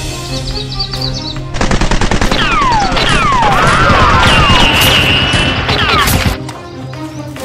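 Rapid machine-gun fire sound effects, with several falling whizzes and a steady high whine, over background music. The firing starts about one and a half seconds in and cuts off suddenly near the end.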